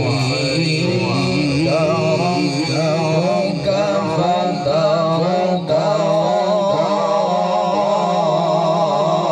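A male Quran reciter chanting tilawat in the slow, melodic Arabic style, amplified through a handheld microphone. He holds long, wavering notes without a break, and his voice climbs higher near the end.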